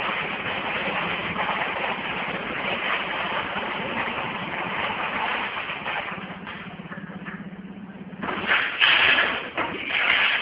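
Automatic screw counting and bagging machine running: a dense clattering of screws over a steady low hum. The noise thins out for about a second and a half, then comes back louder just past eight seconds in.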